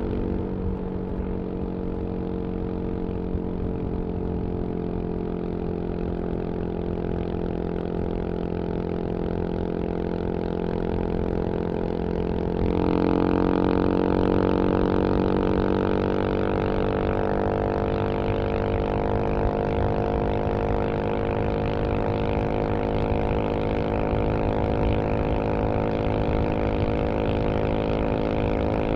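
1994 Yamaha XT 600's single-cylinder four-stroke engine, breathing through a GPR Trevale aftermarket exhaust, running hard at high steady revs toward top speed. About halfway through the engine gets louder and brighter, and its pitch then climbs slowly.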